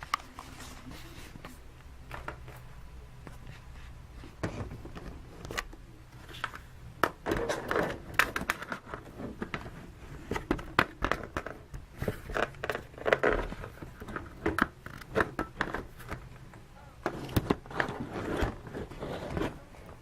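Handling noise while a camera is being set up: scattered clicks and knocks with bouts of rustling and scraping, busiest in three clusters through the middle and near the end.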